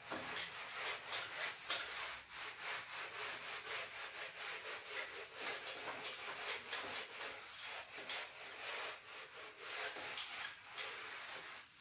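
A handheld eraser wiping marker off a whiteboard in quick back-and-forth strokes, a dry rubbing hiss that repeats stroke after stroke.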